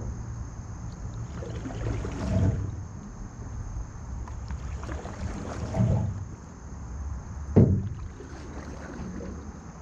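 Canoe paddled along calm water: a paddle stroke swishes through the water every few seconds, with a sharper knock about three-quarters of the way through, over a steady low rumble.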